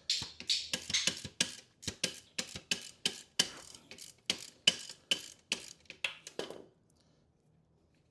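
Ratchet wrench clicking in short, even strokes, about three a second, as a bolt between the engine and transmission is backed out. It stops near the end.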